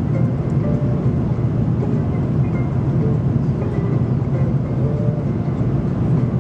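A steady low rumble at an even loudness, with a few faint, brief higher tones over it.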